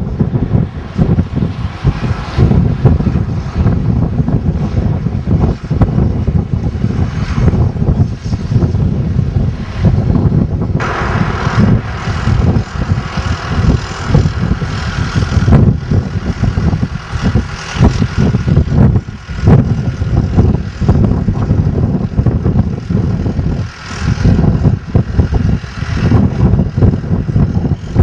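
Tractor engine running steadily, with wind rumbling on the microphone.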